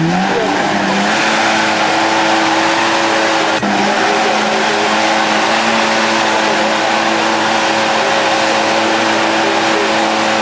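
Off-road competition vehicle's engine revving hard: the revs climb in the first second, then hold high and steady, with a short break about three and a half seconds in.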